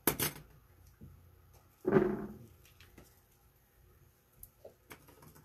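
Scissors give a sharp click as they snip and are set down at the start, followed by quiet handling of deco mesh petals and zip ties. There is a short louder sound about two seconds in and a couple of faint ticks near the end.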